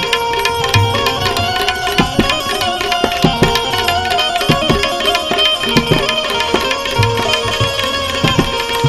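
Instrumental interlude of a Gujarati santvani bhajan: tabla strokes over held, sustained melody notes.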